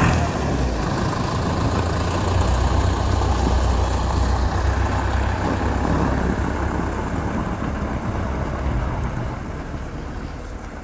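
Case IH tractor's diesel engine running steadily under load as it tows a travel trailer through snow. The engine fades over the last few seconds as the tractor moves away.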